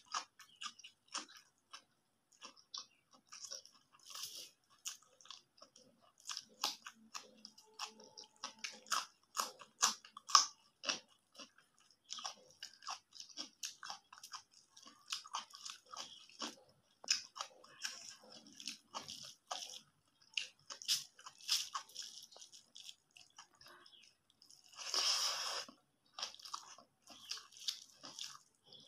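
Close-miked eating sounds: fingers squishing and mixing rice with egg curry on a steel plate, together with chewing, as a steady run of short wet clicks and crunches. About 25 s in there is one longer, hissing sound of about a second.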